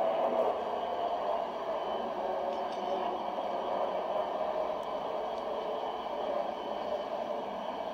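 Saab 340A twin-turboprop airliner flying overhead, its engines and propellers making a steady, even drone.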